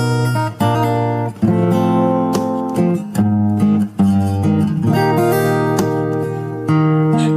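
Solo acoustic guitar played fingerstyle, with chords and melody notes that ring on. A new chord is struck about every second or so.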